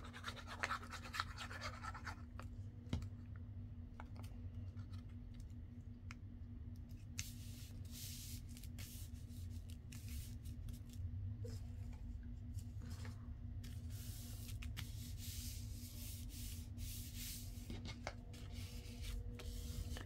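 Hands rubbing and pressing a freshly glued paper journal card flat onto its backing: soft, papery scratching in patches through the middle stretch, over a steady low hum.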